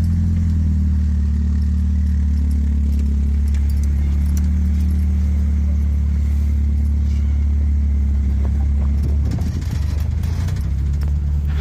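Truck driving: a steady low rumble of engine and road, with light rattling and jangling.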